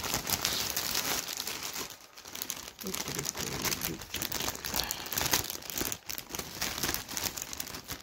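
Clear plastic bag crinkling and rustling as a large plush toy is worked out of it by hand, with a short lull about two seconds in.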